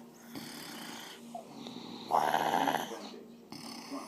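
A woman snoring in her sleep, with one loud snore about two seconds in and quieter breathing before it.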